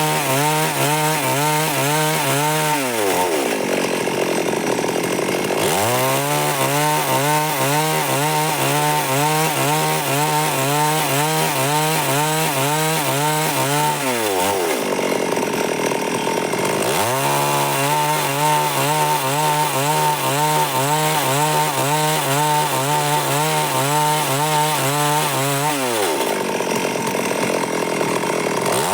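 Stihl MS 382 two-stroke chainsaw cutting wood, its engine running hard with a wavering pitch. Three times the pitch falls away for a couple of seconds and then climbs back up.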